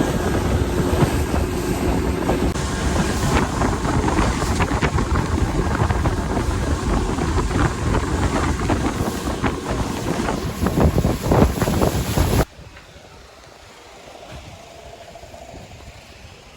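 Wind buffeting the microphone and water rushing and slapping on a moving boat, cutting off abruptly about 12 seconds in to a faint background.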